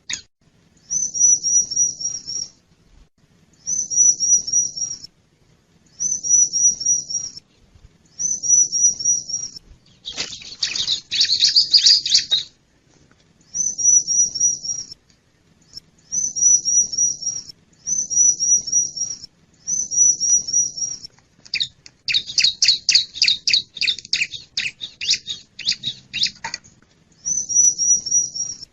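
Bar-winged prinia (ciblek) calling: short high phrases of about five quick notes, each dipping slightly in pitch, repeated about every two seconds. Twice the phrases give way to a longer stretch of rapid, harsher chattering notes.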